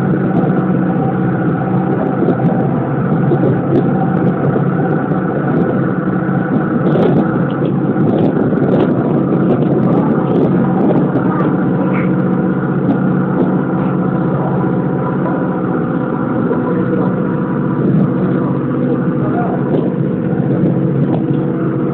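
A small river ferry boat's engine running steadily under way at constant speed.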